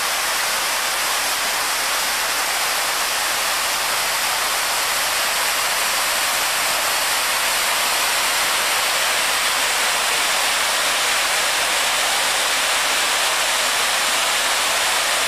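Large fountain's water cascading over its tiered basins: a steady, unbroken rush of falling water.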